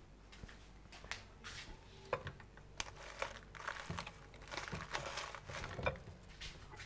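Crinkling and rustling of packaging being handled, with small scattered clicks and taps.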